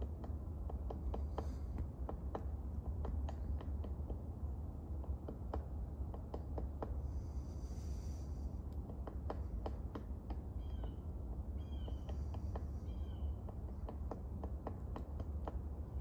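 Red-bellied woodpecker pecking at a tree, making irregular sharp taps over a steady low rumble. A few short high bird calls come in during the second half.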